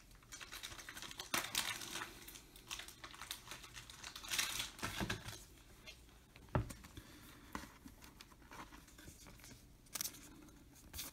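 Thin plastic penny sleeves crinkling and rustling as trading cards are slid into them, in short scattered bursts, with one light knock about two-thirds of the way in.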